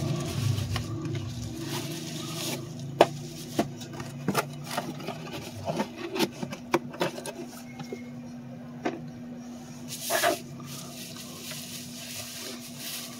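Cardboard box and plastic bubble wrap rustling and crinkling as a packed speaker is handled and unpacked: scattered sharp crackles and taps, with a longer, louder rustle about ten seconds in. A steady low hum runs underneath.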